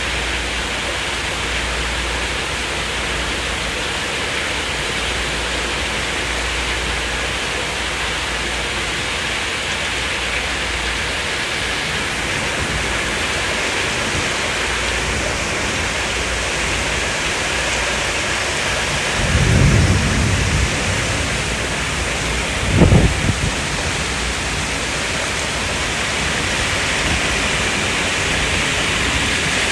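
Steady rain falling, with a roll of thunder about two-thirds of the way through and a shorter, sharper clap of thunder a few seconds later.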